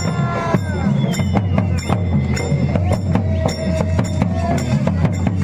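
Folk procession music: a drum beaten in a steady rhythm with small hand cymbals striking about three times a second.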